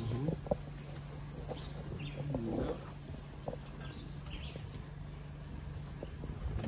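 Insects trilling, short high-pitched pulsing chirps repeating about every second, over a low steady vehicle engine hum.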